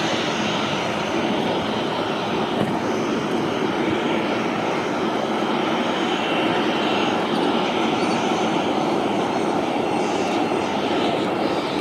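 Jet engines of an Air India Express twin-engine airliner running as it taxis, a steady rumble and hiss with no sudden changes.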